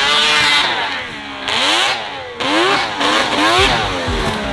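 Snowmobile engine revving in repeated bursts as the sled is ridden hard over snow, its pitch climbing and dropping several times.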